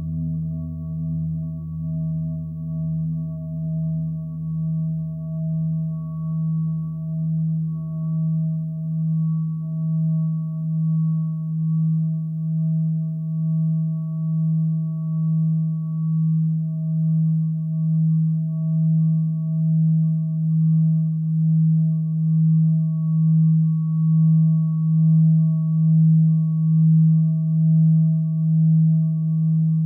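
Minimal electronic drone music: a low sustained tone that swells and fades about once a second, with faint higher tones above it. A deeper tone beneath drops out about twelve seconds in, and the drone grows slowly louder.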